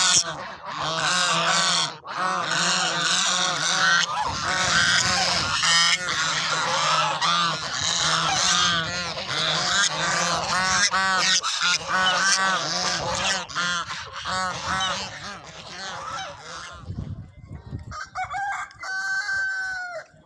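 A flock of white domestic geese honking loudly, many calls overlapping in a continuous chorus. Near the end the honking stops and a chicken calls a few times.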